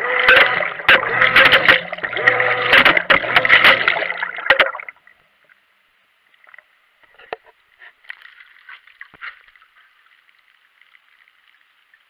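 Wash water churning and sloshing in a Whirlpool top-load washer without an agitator, heard from a waterproof camera tumbling in the tub, with repeated knocks as the wash currents lift the camera and drop it back into the spinner, over a steady hum. About four and a half seconds in the sound cuts off abruptly, leaving only a faint hiss and a few small clicks.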